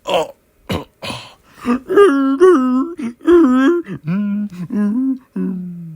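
A man's voice making drawn-out wordless notes, like moaning or humming, after a few short sounds. The notes step between pitches and slide lower near the end.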